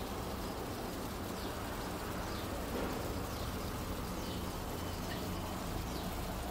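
Water curtain fountain running: many thin streams of water falling from an overhead rim and splashing down steadily.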